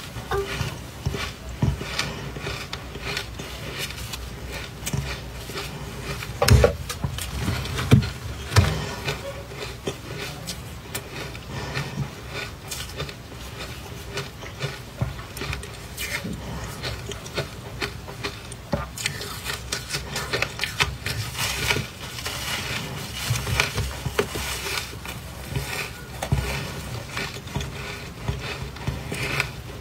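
Close-miked crunching of powdery soft ice dusted with matcha powder: a dense run of small crisp crackles from biting and chewing, mixed with gloved hands crumbling the chunks. A few louder crunches come about six to nine seconds in.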